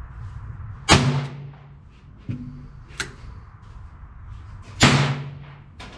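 Two shots from a Taurus .22 LR revolver, about four seconds apart, each a sharp crack with a short echo. A fainter sharp click comes between them.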